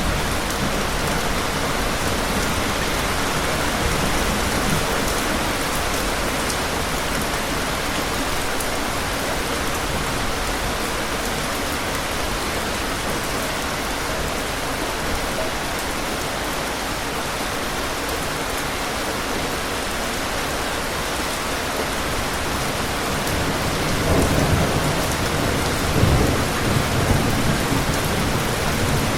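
Steady heavy rain falling, with distant thunder rumbling low twice near the end.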